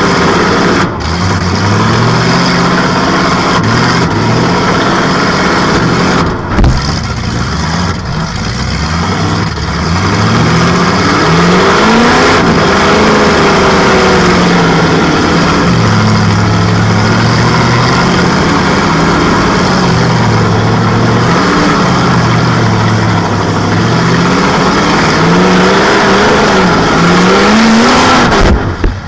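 Demolition derby Metric Cadillac's engine revving up and down over and over through open exhaust stacks, heard from inside the cab. There is a hard thump about six and a half seconds in.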